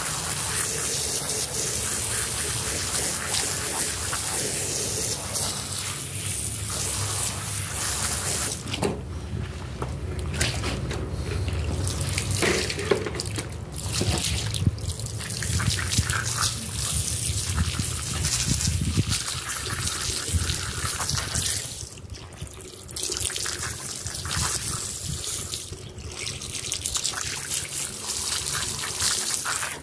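A water jet spraying onto a soaked, soapy rug and floor, rinsing away suds and dirty water. A steady hiss of spray for the first several seconds, then broken and uneven with brief dips as the stream moves across the surface.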